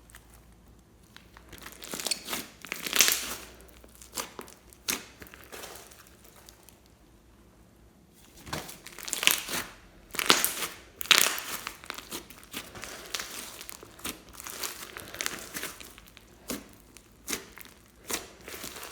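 Hands squishing and stretching slime, making irregular crackling and popping. The popping comes in clusters, busiest about two to three seconds in and again from about eight to twelve seconds in.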